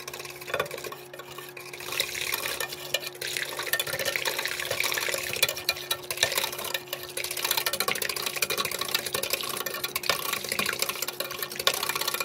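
A pot of soup being stirred and whipped to blend in Keto Chow powder: steady churning and sloshing of liquid with fine clinks, over a faint steady hum.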